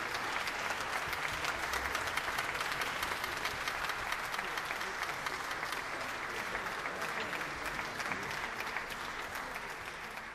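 Audience in a large concert hall applauding steadily, a dense even clapping that eases slightly near the end.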